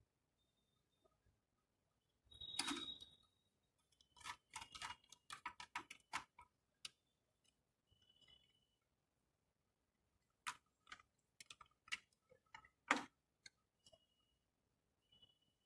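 Scattered clicks and taps of hands working on a fire alarm control panel: a short rustle, then a quick run of clicks about four to seven seconds in and more from about ten to thirteen seconds, with a few faint short high beeps between them.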